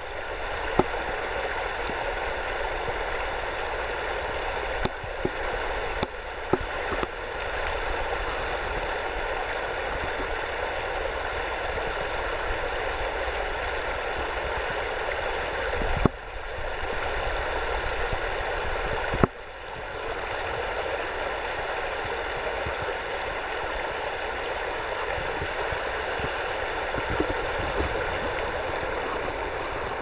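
Steady rush of running water, like a nearby forest stream. A few small clicks and knocks from the camera being handled break in, with a brief dip in the sound around the two louder knocks about halfway through.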